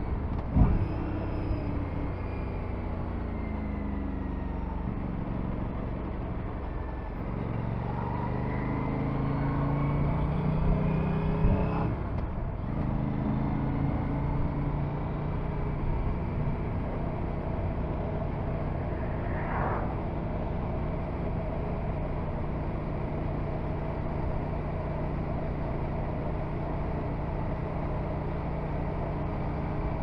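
Aprilia RS 457's parallel-twin engine under way, with wind rush. The revs fall over the first few seconds and climb again from about seven seconds in. They drop with a gear change about twelve seconds in, then hold steady at cruising speed.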